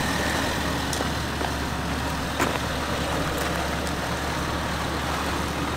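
Toyota 4Runner's engine running at low revs as it crawls over rocks, a steady low hum with one light knock about two and a half seconds in.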